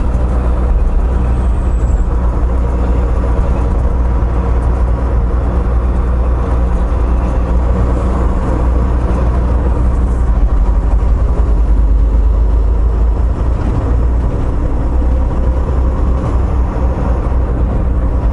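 Semi-truck diesel engine and road noise heard from inside the cab while driving, a steady low drone.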